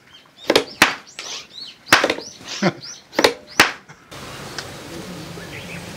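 Improvised bullet sound effects: about six sharp cracks at uneven spacing, several trailed by a short whizzing glide. About four seconds in they give way to a steady outdoor hiss.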